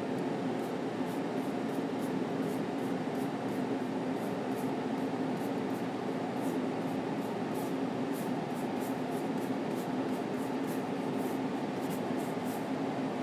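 Steady room hum with a low drone, under faint, quick scratches of a long flat brush stroking oil paint onto a linen panel, about two or three strokes a second.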